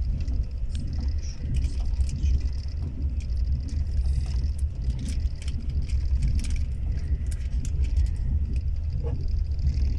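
Steady low rumble of a vehicle on the move, with scattered light clicks and ticks over it.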